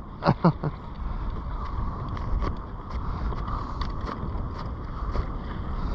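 Wind buffeting the microphone as a steady low rumble, with sea water lapping against a kayak hull and a few faint, irregular taps.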